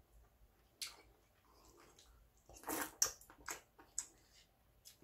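A person eating soup: slurping a spoonful of broth, then a few short wet clicks and smacks from chewing, with a louder slurp about two and a half seconds in.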